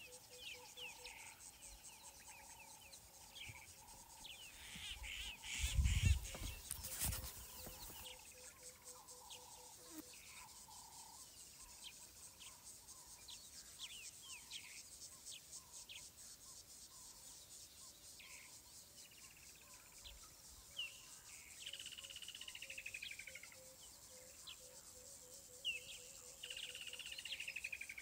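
Bush ambience: insects trilling steadily with birds calling, including a low rapidly pulsing call near the start and near the end and falling whistled notes in the last few seconds. A brief loud low rumble breaks in about six seconds in.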